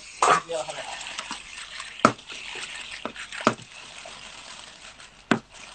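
Clams sizzling and bubbling in a pan of hot olive oil as they open and give off their liquid, the sizzle strongest in the first couple of seconds. Three sharp clinks come through it.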